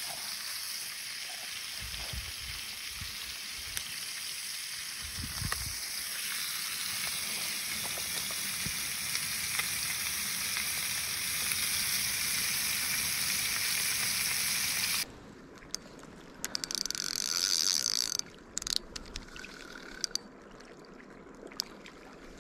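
Fish frying in hot oil in a pan, a steady sizzle that cuts off abruptly about fifteen seconds in. After that the sound is quieter, with scattered clicks and a short burst of hiss.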